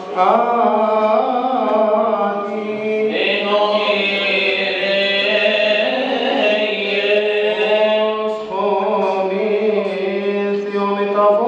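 Man chanting a Coptic Orthodox liturgical hymn into a microphone, in long held notes that bend and turn slowly.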